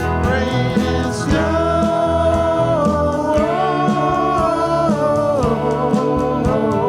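A live band playing a song: drums and bass keep a steady beat under a melody of long held, sung notes that slide from one pitch to the next.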